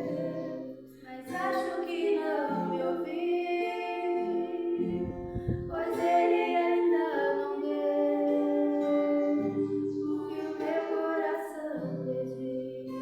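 Two women singing a slow hymn with long held notes, accompanied by acoustic guitar.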